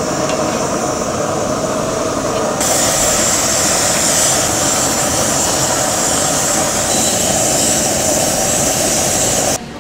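Marinated steaks sizzling on a ridged cast-iron grill pan over a gas flame: a steady hiss that gets louder and brighter about two and a half seconds in.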